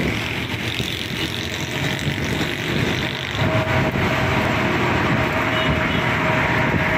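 Steady engine and road noise from an open-sided auto-rickshaw on the move, with traffic running close alongside. A thin steady tone joins about three and a half seconds in.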